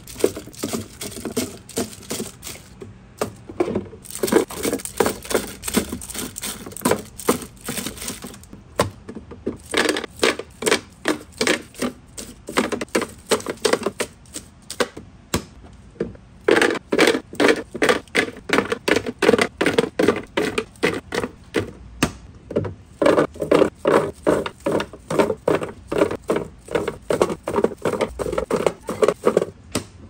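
Wrapped candies being dropped by hand into clear plastic fridge bins: quick runs of clicking and clattering, several a second, with short pauses between handfuls.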